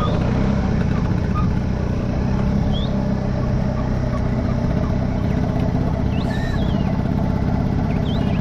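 Bajaj Chetak scooter engine running steadily under way, heard from the rider's seat, with a few faint high chirps over it about halfway through and near the end.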